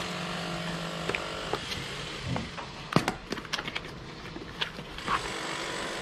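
Small cardboard box being handled and opened, with a quick run of sharp crackles and clicks about three seconds in.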